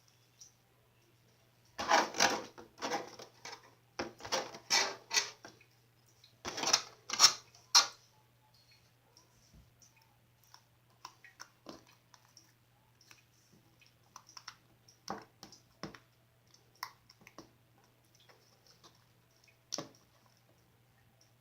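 Glossy slime being squished and poked by hand, making quick wet clicks and pops. The clicks come in dense bunches for the first several seconds and then thin out to scattered single clicks, over a faint steady low hum.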